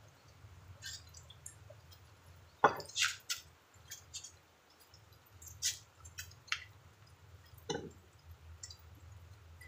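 Light clicks and clinks of plates and tableware on a wooden table as people eat by hand, with a louder sharp knock about three seconds in and another near the end, over a faint low hum.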